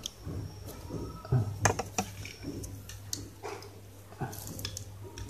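Handling noise: scattered light clicks and taps as a plastic soldering iron and its cord are handled, over a faint steady low hum.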